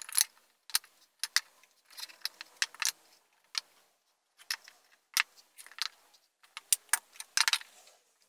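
Irregular light clicks and taps of plywood spacer blocks and shelf pieces being set down and shifted inside a plywood cabinet while shelf lines are marked out.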